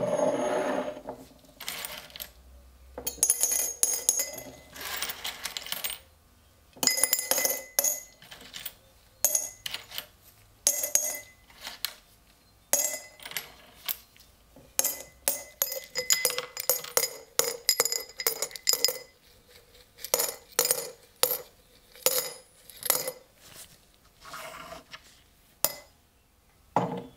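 A glass jar is set down on a wooden board with a knock, then corroded old coins are dropped into it by hand, one or a few at a time. Each lands with a sharp, ringing clink against the glass and the coins already inside, in irregular clusters.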